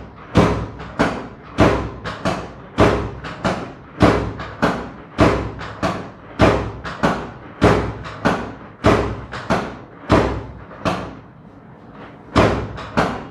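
Rhythmic thumps of hands striking a patient's back during a back massage, about one and a half blows a second, pausing briefly near the end.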